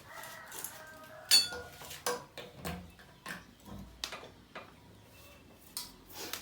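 Metal tools and motorcycle parts clinking and knocking during engine assembly: a string of separate clanks, the loudest about one and a half seconds in with a short metallic ring.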